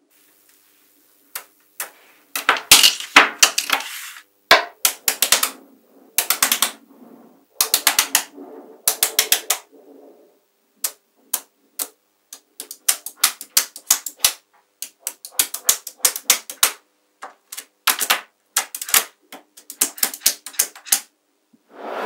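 Small magnetic balls clicking sharply against each other in quick irregular clusters as they snap together and are handled, with short pauses between the bursts.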